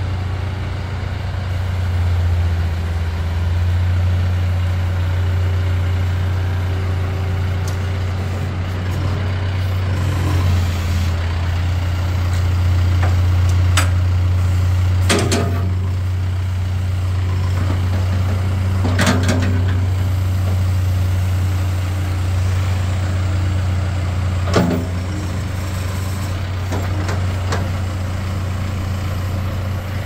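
John Deere 310SL backhoe loader's diesel engine running steadily while the hydraulics move the backhoe boom and bucket, with a few sharp metal clunks from the backhoe.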